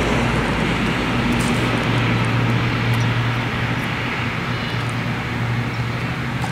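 Steady outdoor background noise: an even hiss with a low steady hum underneath.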